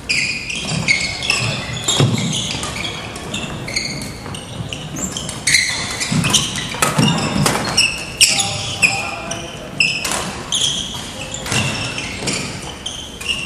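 Court shoes squeaking over and over on a hardwood gym floor during badminton play, mixed with thumping footfalls and sharp knocks, in a large echoing hall.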